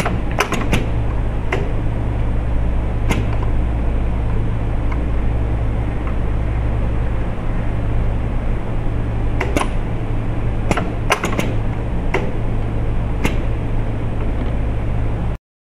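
Automated stopcock assembly machine running: a steady low mechanical hum with irregular sharp clicks and clacks from its pneumatic actuators and parts feed, a few about half a second to a second and a half in and a cluster in the last third. The sound cuts off abruptly near the end.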